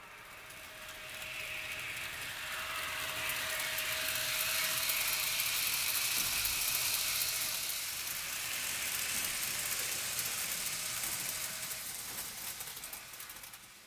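H0-scale model train running past on the layout's track: a steady rattling clatter of wheels with fine clicking and a faint motor hum. It swells over the first few seconds and fades away near the end.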